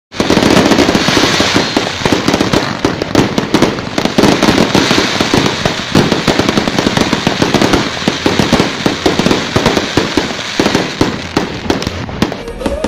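Fireworks barrage going off at close range: a dense, unbroken run of sharp bangs and crackles, many a second, with rising shots and bursting shells.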